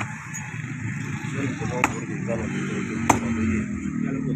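Two sharp chops of a butcher's cleaver through beef onto a wooden chopping block, a little over a second apart, over a steady low background hum and murmur.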